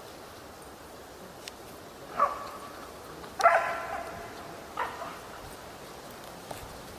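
Rescue dog barking three times, about a second and a half apart, the middle bark the loudest.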